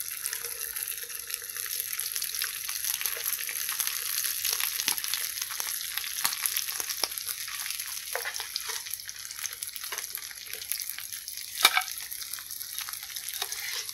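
Hot oil sizzling and crackling in a frying pan as pieces of vegetarian mock mackerel fry, with scattered clicks from stirring and one sharper click near the end.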